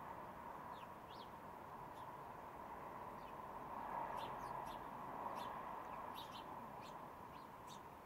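House sparrows chirping: short, high chirps, a few at first and then many in quick succession through the second half, over a steady background hum.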